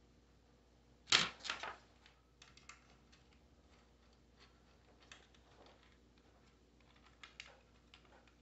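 A stock side cover being pulled off a Kawasaki Vulcan S: a quick cluster of loud clicks and snaps about a second in, then scattered light clicks as it comes free.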